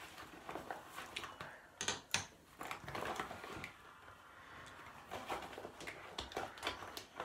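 Makeup brushes and containers being handled and set down: scattered light clicks and knocks with faint rustling, a few sharper knocks about two seconds in.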